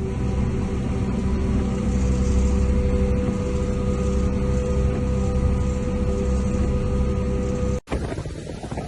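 A steady engine drone with a low rumble underneath, cut off abruptly near the end. After the cut comes gusty wind noise on the microphone.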